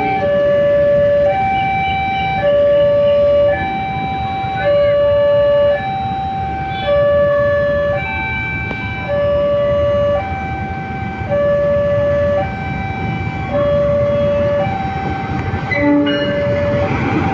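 Railway level-crossing warning alarm sounding an electronic two-tone chime, a low note and a higher note alternating about once a second. Near the end the rumble of an approaching freight train rises under it.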